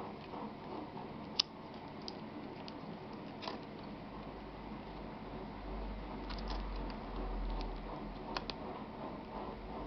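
Scattered light clicks and taps of laptop hardware being handled, with a low rumble from about four to eight seconds in.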